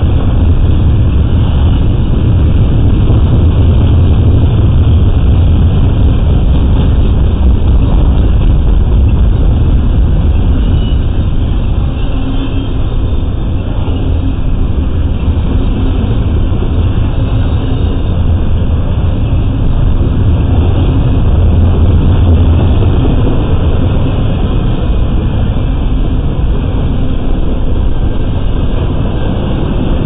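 Double-stack intermodal freight train's well cars rolling past at speed, a loud, steady rumble of steel wheels on rail.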